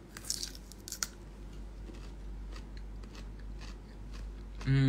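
A person biting and chewing something crunchy close to the microphone: a few sharp crunches in the first second, then softer, scattered chewing crackles.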